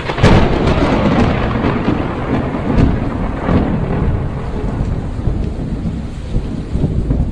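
Thunderstorm sound effect: a sharp thunderclap right at the start and another crack a little under three seconds in, over rolling thunder and steady rain.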